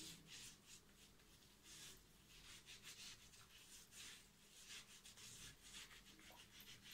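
Faint, soft rubbing of shaving-soap lather being worked into a beard with the fingers: a string of quiet swishes.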